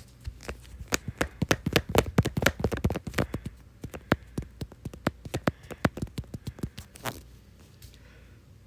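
Fast, irregular run of sharp taps and clicks, several a second, stopping about seven seconds in.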